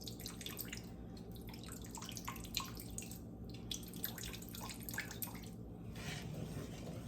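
Thin sauce heating in a frying pan, giving faint, irregular drips and small liquid ticks.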